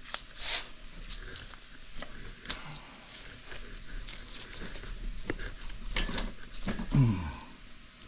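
Scattered light metal clicks and knocks as a bolted-on hydraulic pump on a Minneapolis-Moline V-4 engine is worked by hand to break it free; it stays stuck. A short grunt of effort comes about seven seconds in.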